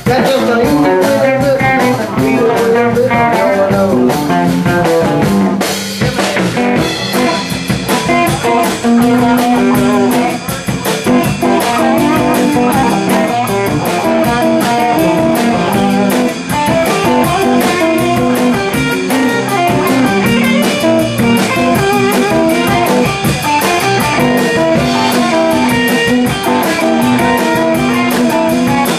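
A live blues-rock band: two electric guitars, an electric bass and a drum kit playing together. The drumming grows busier about six seconds in.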